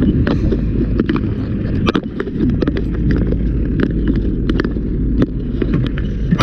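Many irregular sharp knocks and cracks over a steady, loud low rumble.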